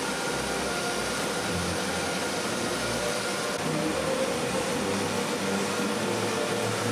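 Paper straw production and packaging machinery running with a steady mechanical hum and hiss.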